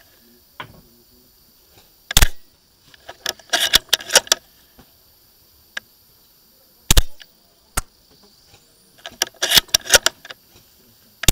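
Novritsch SSG10 spring-powered bolt-action airsoft sniper rifle firing single shots: three sharp cracks, roughly four to five seconds apart, with shorter clattering between them.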